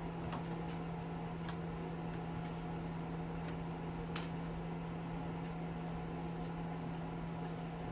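Steady low background hum, like a running fan or appliance, with a few faint light clicks of small parts being handled.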